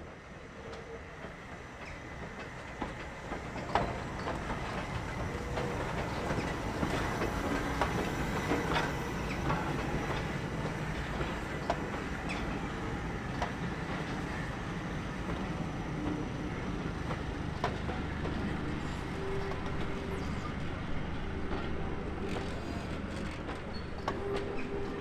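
Train running on jointed track, its noise building over the first few seconds and then holding steady, with the wheels clicking over the rail joints.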